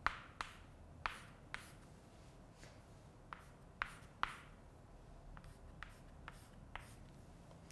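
Chalk tapping and scraping on a blackboard as someone writes: a string of short, sharp strokes and ticks, a few seconds apart at first and then lighter and closer together.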